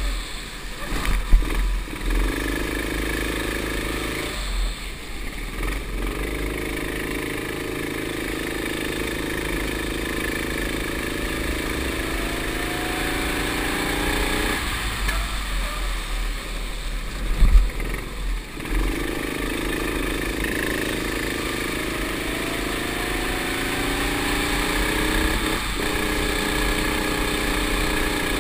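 Racing kart engine heard on board, its note climbing steadily in pitch under acceleration along the straights and dropping away twice when the driver lifts off for corners. Wind buffets the microphone throughout, with a sharp knock about a second in and another about two-thirds of the way through.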